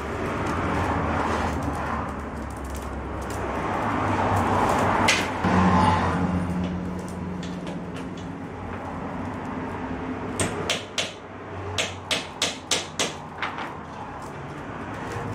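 Willow rods rustling and scraping as they are worked through the stakes of a basket, followed by a quick run of sharp taps and knocks about ten seconds in, with a faint low hum under it.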